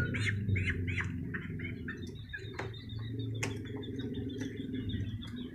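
A chick (young chicken) peeping in a quick string of short high calls that thins out after about a second and a half. A steady low hum runs underneath, with two sharp clicks partway through.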